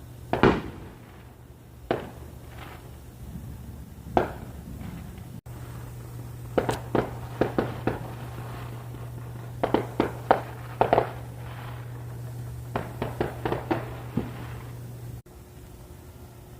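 Fireworks going off: a few single bangs, then quick clusters of sharp pops and crackles, over a steady low hum.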